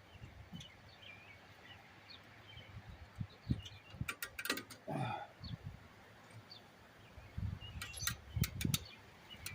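Sharp metallic clicks and light knocks of drum-brake shoe hardware (springs and retainer clips) being worked by hand, in two clusters about four and eight seconds in. Faint bird chirps sound behind.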